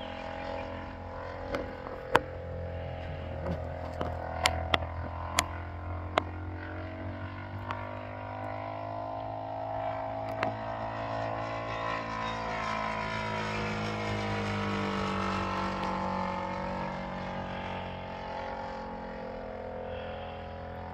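A 1/4-scale Spitfire radio-controlled model flying overhead, its motor and propeller droning steadily, the pitch rising and falling slowly as it circles. A few sharp clicks sound in the first several seconds.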